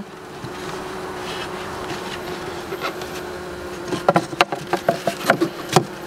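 Honeybees buzzing around an open hive, a steady hum with one bee's drone held near the microphone. From about four seconds in, a quick run of light clicks and knocks as the wooden hive parts are handled.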